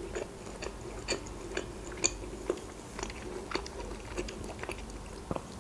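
Close-up chewing of a crunchy pickled cucumber: a string of small, crisp crunches and mouth clicks, a few a second.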